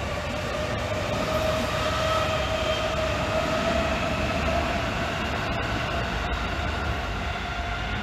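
JR electric commuter train running past a level crossing: a steady running rumble with a wavering whine, loudest midway and easing as the last cars go by.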